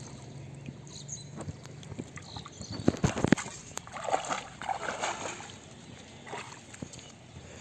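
Muddy water splashing and sloshing as a bamboo fish trap is lifted out of a flooded paddy field and carried off, with a few sharp knocks about three seconds in.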